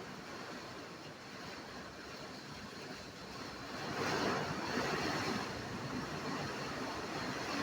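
Heavy rain falling in strong wind: a steady rushing noise that swells louder about four seconds in as a gust picks up.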